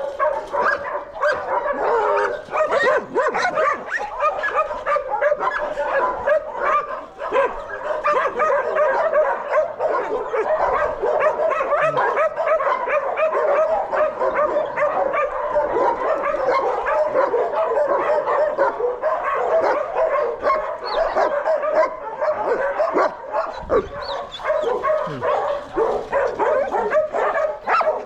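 Many kennelled shelter dogs barking and yipping at once, a continuous dense chorus of overlapping barks with no let-up.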